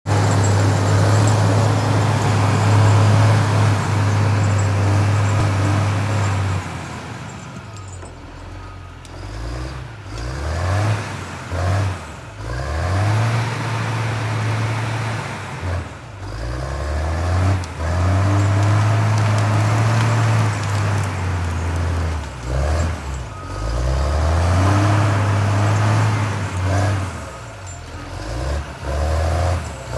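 Cat 535C grapple skidder's diesel engine running, steady and loud at first. About seven seconds in it grows quieter as the machine drives off, and its pitch then rises and falls again and again with the throttle as it works and comes back.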